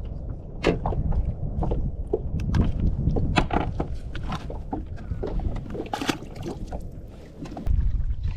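Scattered knocks and clatters of gear being handled in a fishing boat, over a steady low rumble.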